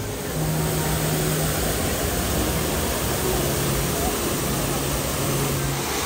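Steady rushing of falling water from a garden water feature, with a nasheed's long held low vocal notes over it, stepping to a new pitch every second or so.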